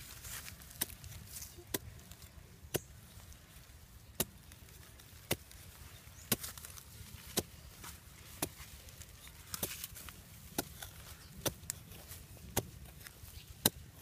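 A long knife blade chopping down into dry soil to dig a hole, striking about once a second in a steady rhythm, each strike a short sharp chock.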